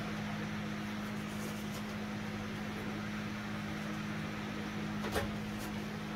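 A steady low machine hum, like a fan or motor running, with a single sharp click about five seconds in.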